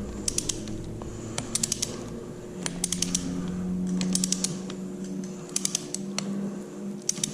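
Ratchet wrench being worked to tighten a handguard mounting bolt: a quick run of pawl clicks on each back-swing, six runs about a second and a quarter apart.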